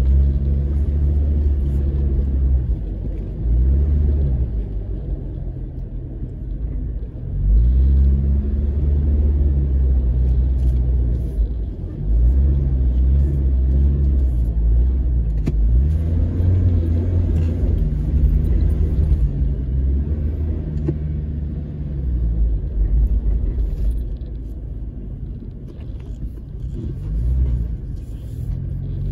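A vehicle's engine heard from inside the cabin with a heavy low rumble, revving up and easing off several times as it drives across soft sand dunes.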